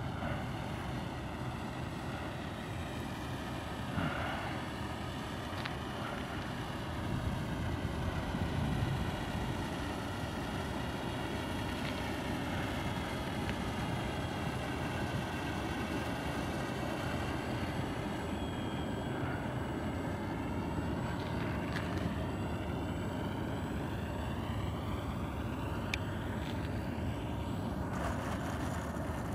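Radio-controlled model triplane's motor and propeller droning in flight, the pitch of its whine slowly rising and falling as the plane passes back and forth, over a steady rushing noise.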